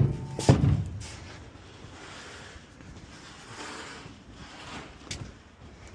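Two heavy thumps about half a second apart as boxes and junk are dropped into a truck, then quieter shuffling and a single sharp knock near the end.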